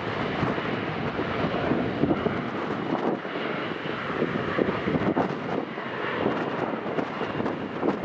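Jet engines of a regional jet taxiing at low power: a steady rushing noise with no sudden changes.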